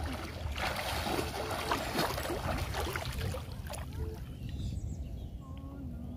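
Water sloshing and splashing as a person wades through shallow floodwater and moves things in it, busiest in the first four seconds and quieter after.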